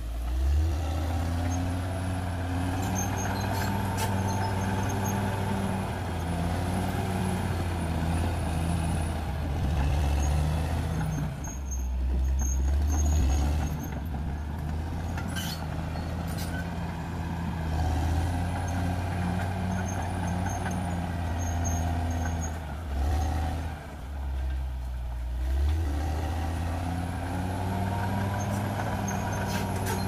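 Caterpillar D6R XL crawler bulldozer's diesel engine working under load as the dozer pushes soil and a felled log. The engine note rises and falls every few seconds, easing off briefly about twelve seconds in and again near twenty-four seconds.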